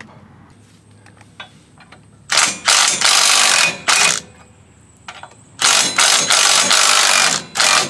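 Cordless electric ratchet with a 7/8-inch socket running in bursts as it backs off a bolt: a short burst a little over two seconds in, a longer one of about a second, another short one, then about two seconds of running near the end.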